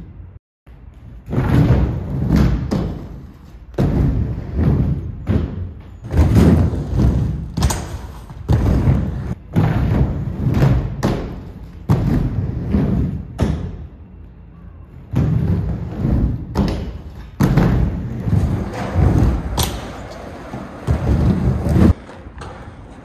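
Aggressive inline skate wheels rolling and thudding on a mini half-pipe ramp as the skater rides back and forth: a loud rumbling pass about every two seconds, with a short break about two-thirds of the way in, stopping near the end.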